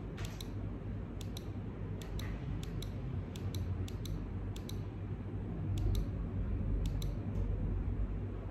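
Colouring pencil scratching on paper in short, sharp strokes, often in quick pairs, about one or two a second, over a steady low hum.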